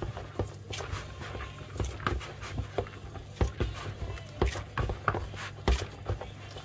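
Hands squeezing and kneading a crumbly almojábana dough of grated cheese, starch and milk: irregular soft squishes and crackles over a low steady hum.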